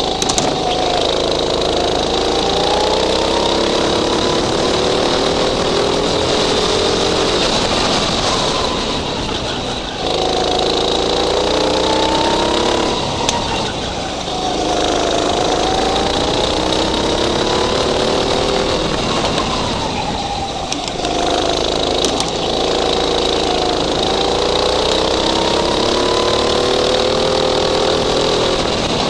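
Go-kart engine heard from the driver's seat, revving up along the straights and dropping in pitch each time the throttle is lifted for a corner, several times over.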